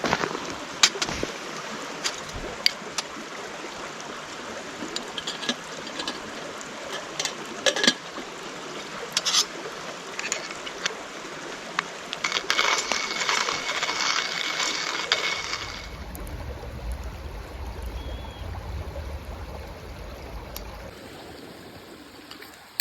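Whole coffee beans clinking and rattling: scattered small clicks, then a dense rattle for a few seconds about halfway through. A low rumble follows near the end.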